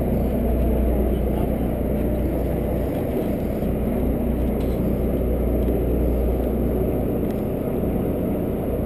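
Sportfishing boat's engine running steadily, a low even rumble, with a few faint clicks.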